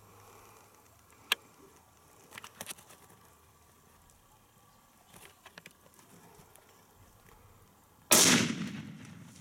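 A single rifle shot near the end, sudden and loud, its report dying away over about a second. Before it come a few faint clicks and rustles.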